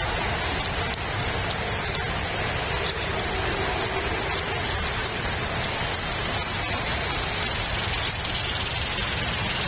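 Steady rain falling, an even hiss with scattered faint drop ticks and a low rumble underneath.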